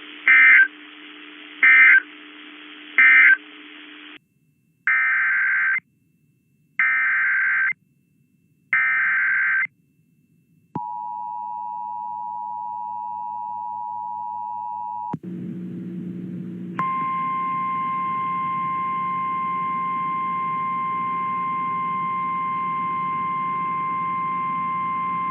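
Emergency Alert System signalling. Three short screeching data bursts (the end-of-message code) are followed by three longer data bursts about a second apart (the header of the next alert). Then comes the two-tone attention signal, held about four seconds, and after a brief noisy gap the steady single-pitched weather radio warning tone.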